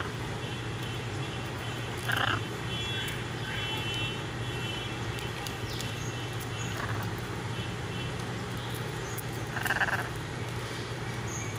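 Blue-and-yellow macaws making three short, raspy calls while they eat, the last the loudest, over a steady low hum.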